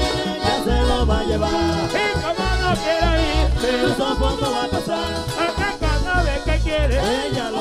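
Live vallenato band playing, the accordion carrying fast, wavering melodic runs over a steady bass beat and percussion.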